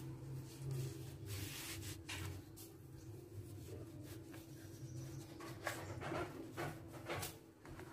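Kitchen knife cutting through lightly roasted chapatis on a wooden chopping board: short scraping strokes, a few in the first half and four in quicker succession near the end, over a steady low hum.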